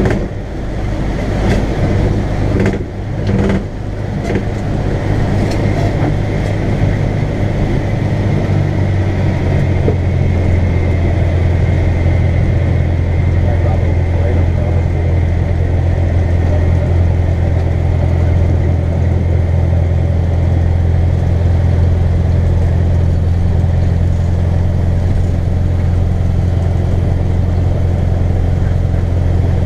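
A Cessna 150L's four-cylinder Continental O-200 engine and propeller drone steadily at low power, heard from inside the cabin, while the plane rolls out and slows on the runway. There are a few knocks and rattles in the first few seconds.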